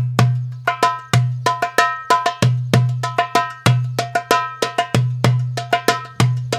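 Music with a steady, repeating percussive beat: bell-like hits over a recurring bass note.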